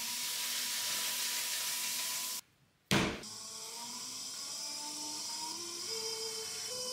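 Electric potter's wheel running, a steady motor hum under the hiss of a wet sponge and hands on the wheel head. The sound drops out for half a second, then a sharp knock about three seconds in; after it the motor hum steps up in pitch as the wheel speeds up while clay is centred.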